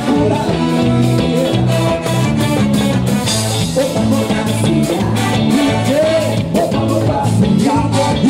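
Live band playing an upbeat Bahian carnival song, with a singer, electric guitar and bass over a fast steady beat.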